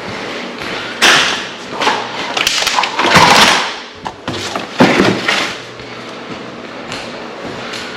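Irregular handling noise during a ceiling fan install: knocks and scraping clatter, loudest about a second in, around three seconds in and around five seconds in, then quieter.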